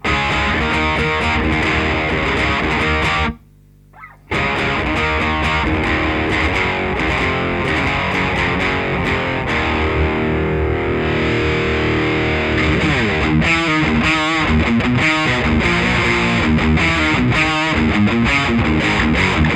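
Electric guitar overdriven through a Marshall The Guv'nor pedal, playing distorted riffs and chords. The playing stops for about a second near the start. Later a held chord rings out, followed by wavering bent notes.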